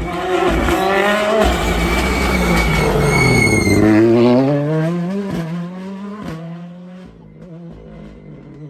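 Ford Fiesta R5 rally car's engine, loud and high-revving as the car passes close by; its pitch drops as it goes past, then climbs again twice as it pulls away and fades.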